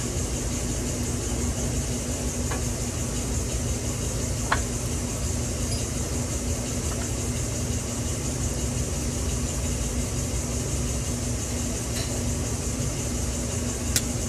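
Steady hum and hiss of garage background noise, with a few light clicks of metal hand tools as an oil filter is worked loose under a car.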